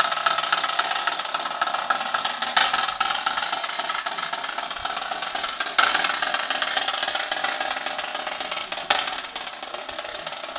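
Drum corps playing a continuous snare drum roll, with a sharper accent about every three seconds, slowly fading towards the end.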